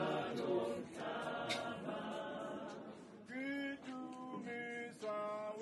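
A church congregation singing together unaccompanied, a chant-like hymn. About three seconds in, the massed sound thins into a clearer line of held notes that step from pitch to pitch.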